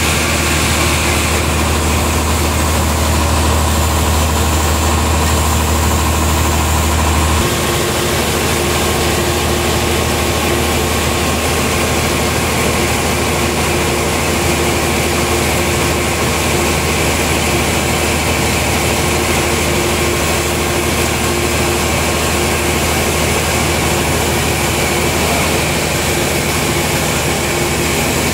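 Sawmill machinery running with a loud, steady engine drone; a deep low hum drops away suddenly about seven seconds in while the rest of the drone carries on unchanged.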